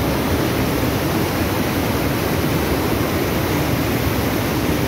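Floodwater pouring over a reservoir spillway: a steady, unbroken rush of falling water.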